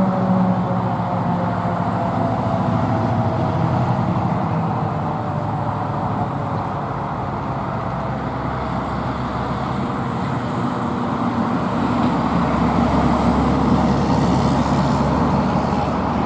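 A car engine and tyre noise running steadily, with a faint tone slowly falling in pitch during the first few seconds.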